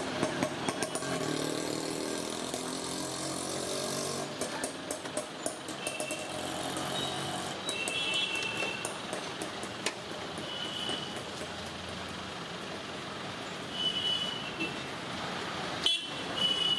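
Street traffic noise: passing motor vehicles, with an engine running loudest a second or so in. A run of sharp clicks comes about four seconds in, and brief high-pitched tones sound now and then.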